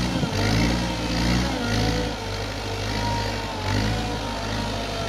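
Hidromek 62SS mini backhoe loader's diesel engine running under load, its speed rising and falling as the machine is worked.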